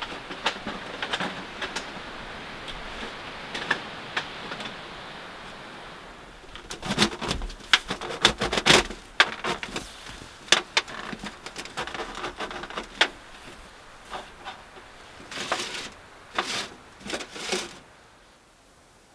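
Metal clinks and knocks of a small folding wood stove and its stovepipe being handled by hand, irregular and in clusters for about ten seconds. Before them comes a steady hiss with faint ticks.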